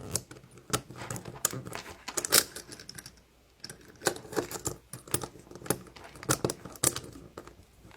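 Hands fitting small plastic toy figures and parts into a Roll a Scare toy: irregular sharp plastic clicks and taps, with a short pause a little after three seconds.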